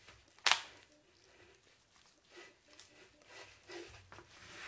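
A skinned raw rabbit's pelvis being pried open by gloved hands: one sharp crack about half a second in as the hips give way, then faint, soft, wet handling sounds of the meat.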